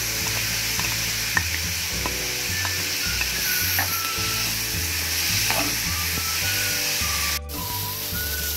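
Diced eggplant pulp, onion and freshly added chopped red pepper and green chillies sizzling in oil in a frying pan while a spatula stirs them, with a few light clicks of the spatula against the pan. The sound briefly cuts off near the end.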